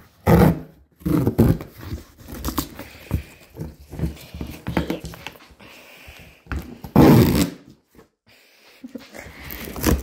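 Cardboard box being handled and worked open: irregular bursts of scraping, rustling and tearing with knocks in between, the loudest about seven seconds in.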